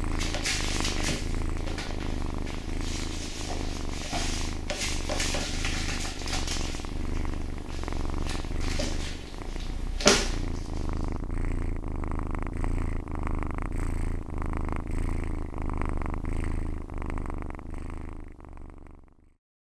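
A long-haired cat purring steadily, with a rhythmic low throb, while knotted plastic bags rustle and crackle during the first half. A sharp click about ten seconds in; the sound fades out just before the end.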